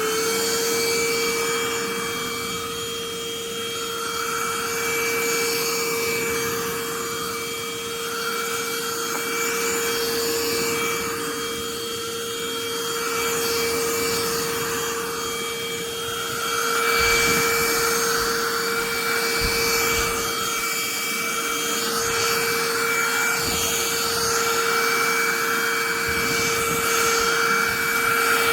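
Cordless handheld vacuum cleaner running with a steady motor whine, the rush of air swelling and fading every couple of seconds. A few low knocks come a little past halfway.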